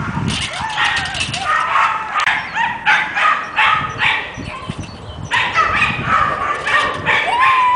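Dog barking in quick, high yaps, about two a second, with a short pause about halfway and a longer drawn-out call near the end.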